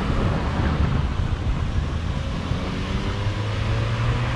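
City road traffic heard from a moving bicycle, with wind rushing over the bike-mounted action camera's microphone; a steady low hum comes in about three seconds in.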